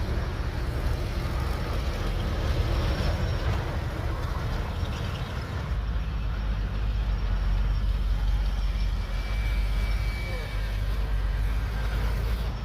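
Bulldozer's diesel engine running under load with a steady deep rumble. About six seconds in, the low rumble grows heavier while the higher noise thins out.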